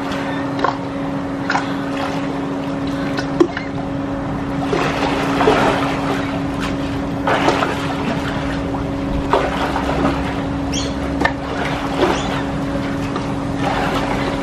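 Water splashing in irregular bursts as a swimmer strokes through a swimming pool, over a steady low hum.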